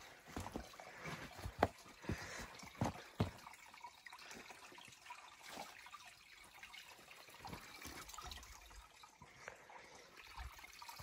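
Footsteps crunching and knocking on wet rocks and stones in a shallow creek bed, sharpest in the first few seconds, over the faint trickle of a small stream.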